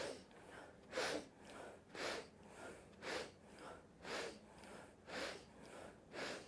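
A person taking sharp, short sniffs through the nose about once a second, each followed by a softer breath out: the rhythmic inhalations of a breathing exercise.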